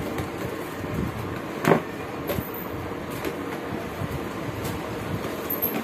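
A plastic tea table's moulded top is pressed and settled onto its legs, giving one sharp plastic knock about a second and a half in and a few fainter taps, over a steady background hum.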